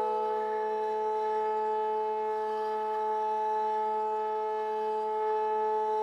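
Sustained chord from a keyboard-played vocoder tuned to the surrounding space: several steady pitches held together as one unchanging electronic drone.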